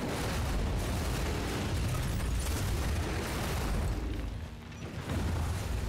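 Film sound of a car crash: a big-wheeled car flipping and tumbling over in dirt, with a deep continuous rumble of impacts and engines that eases off briefly about four and a half seconds in.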